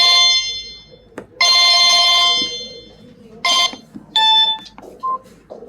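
Samsung GT-E1150 mobile phone playing a ringtone: electronic notes rich in overtones, two long held notes followed by shorter ones that grow fainter toward the end.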